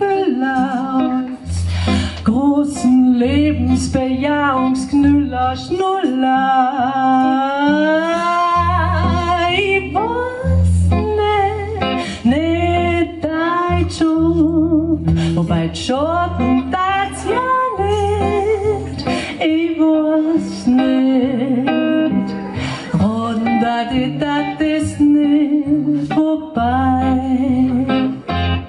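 A woman singing live into a microphone, accompanying herself on an amplified acoustic guitar, in a small room. Her voice moves in long sliding runs with vibrato over the steady guitar.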